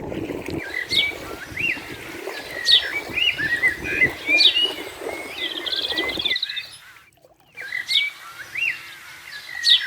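Birds chirping, with many short calls and quick upward-sweeping notes repeating throughout. A low rumbling noise lies under them for the first six seconds, then drops away, leaving a brief near-silent moment before the chirping carries on over a quieter background.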